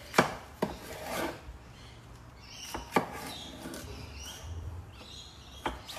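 Kitchen knife cutting through a red capsicum (bell pepper) on a wooden chopping board: about four sharp knocks of the blade meeting the board, with softer slicing and scraping sounds between them.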